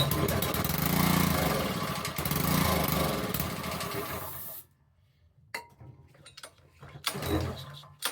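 Honda GC190 single-cylinder engine on a pressure washer running for about four and a half seconds, then dying suddenly, followed by a few short bursts as it tries to fire again. It keeps stalling from fuel starvation: the owner finds the vacuum fuel pump was not connected to the engine.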